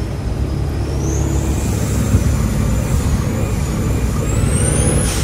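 Diesel semi-truck engine running with a steady low drone, over a high whine that rises and falls and climbs sharply near the end.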